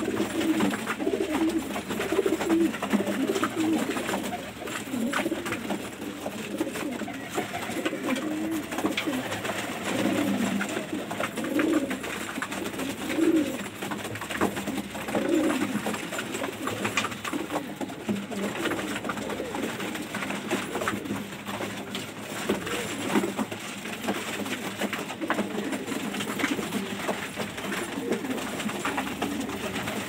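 A flock of domestic pigeons cooing together in a small enclosed loft, many low coos overlapping without a break.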